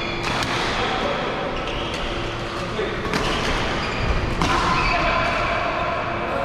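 Badminton play: rackets hitting shuttlecocks in short sharp strikes, about one a second, with shoes squeaking on the court mats and voices in the background.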